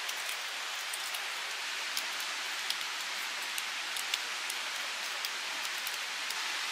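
Steady rain falling, a constant hiss with scattered sharp ticks of single drops striking, a few of them louder.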